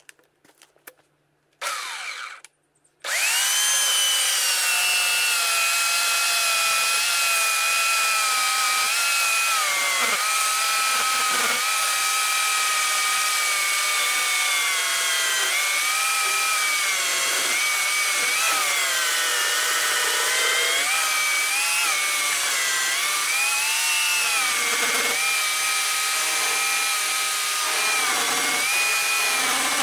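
Oregon CS1500 electric chainsaw cutting through a log: after a few clicks and a short burst about two seconds in, the motor comes up to speed and runs with a steady high whine. Its pitch dips and recovers again and again as the chain bites into the wood.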